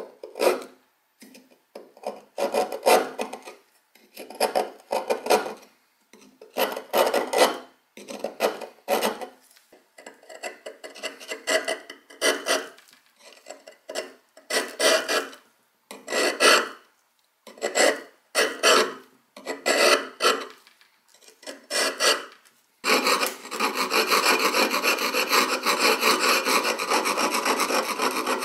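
A steel chisel scraping thick rust off an old axe head and handle, in short strokes roughly one a second. Late on, the scraping runs on without pauses.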